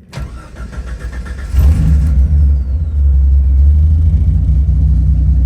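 1988 Jeep XJ Cherokee's starter clicking in and cranking the engine, which catches about a second and a half in and then runs loud and steady. The owner is chasing a weak start-up, suspecting the battery, alternator or starter.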